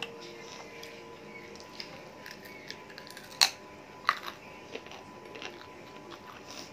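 Chewing and gnawing on a chicken leg bone, with scattered sharp crunches and clicks; the loudest crunch comes about three and a half seconds in and another just after four seconds.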